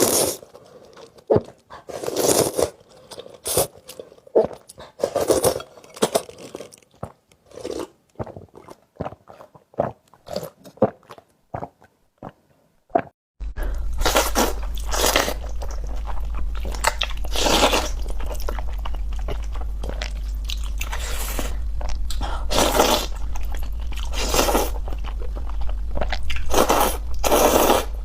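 Close-miked eating of noodles and fried egg: a run of chewing and crunchy bites with short pauses. About halfway through, a steady low hum comes in under the eating.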